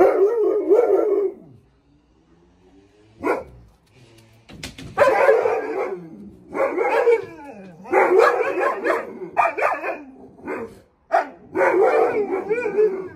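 Alaskan malamute barking and howling in a string of short bouts with a wavering pitch, about a second each with brief gaps between them. It is protective alarm barking, set off by a window cleaner's ladders next door.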